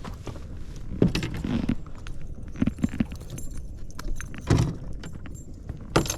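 Metal jangling and knocks in a few separate clattering bursts: a spinnerbait's metal blades and hooks rattling as a freshly caught bass is handled in the boat.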